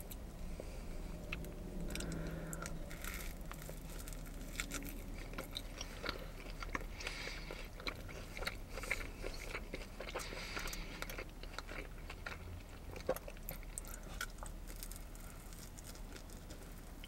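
Close-up eating sounds: a person biting into and chewing a battered corn dog, with many small sharp mouth clicks and bites.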